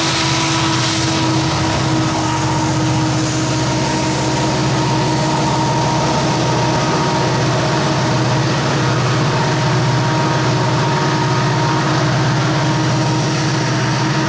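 Rear-end diesel locomotives of a Norfolk Southern ethanol tank train running loud and steady under load as they climb away. The hiss of wheels on rail fades in the first second or so after the last unit passes.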